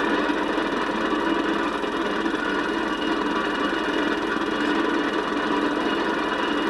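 Film projector running with a steady whirr and a fast, even clatter from its mechanism. The sound stays level throughout.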